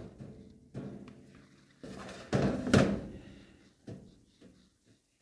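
A bowl of dough being put into a switched-off, warmed oven: a few knocks and rattles, the loudest a scraping thunk about halfway through, then a short click.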